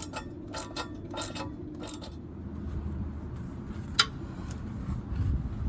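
Socket ratchet clicking in a few short strokes while a torque converter bolt is tightened onto the flex plate, then a single sharp metallic click about four seconds in.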